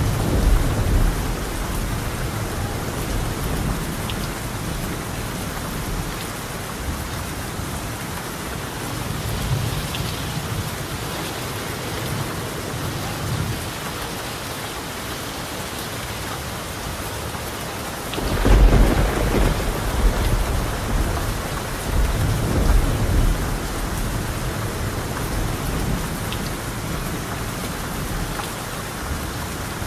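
Steady rain falling on a tiled roof, with rolling thunder: a rumble right at the start, a louder, longer roll about two-thirds of the way through, and another a few seconds after it.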